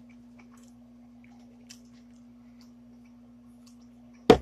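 A steady low hum with a few faint ticks, then one sharp, loud knock near the end as a hot sauce bottle is picked up and handled.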